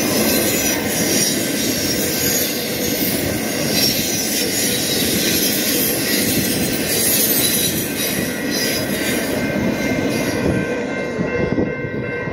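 BNSF intermodal freight train's cars rolling past: a steady rumble of wheels on rail with thin, steady wheel squeal. The high hiss falls away about ten seconds in.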